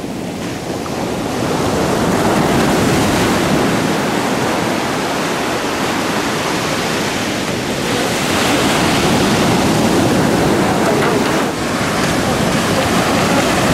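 Ocean surf breaking and washing up on a beach: a steady rush of waves that swells about two seconds in and again about eight seconds in.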